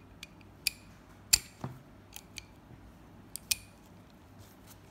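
Forged chrome-plated steel sockets and a 1/2-inch drive hinged socket handle clicking and clinking as they are handled, a socket snapping onto the square drive. About eight sharp metallic clicks come at uneven intervals, the loudest just over a second in.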